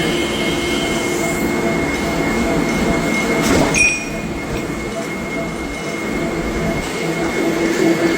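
Steady mechanical rumble with a constant high-pitched whine, like rail or heavy-machinery running noise, with a sharp clank about three and a half seconds in.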